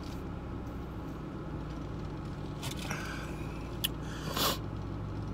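Steady low hum of a car idling, heard from inside the cabin. A few short rustles and a sharp click come through about three to four and a half seconds in.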